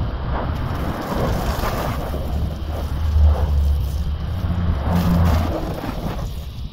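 Wind buffeting the microphone in a steady low rumble, over the hiss of a garden hose spray gun rinsing a car's wet-sanded paintwork. The rumble drops away near the end.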